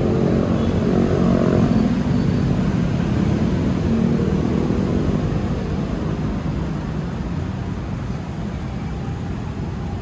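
Motor vehicle engine passing close by, its hum strongest in the first few seconds and fading away over the second half, over a continuous low traffic rumble.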